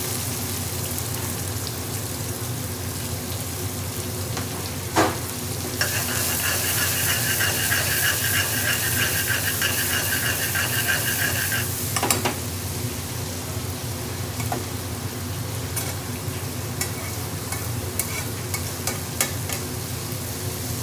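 Diced onions frying in hot oil in an aluminium pan, sizzling steadily as a metal spoon stirs them, with the spoon knocking on the pan about five seconds in and again about twelve seconds in. In between, while the pan is tossed over the gas flame, the sizzle grows louder, with a steady ringing tone over it; light clicks of the spoon follow near the end.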